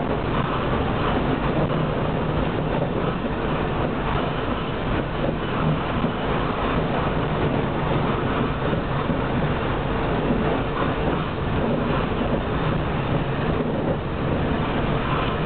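Tram running along street track, heard from inside the car: a steady rumble of wheels on the rails.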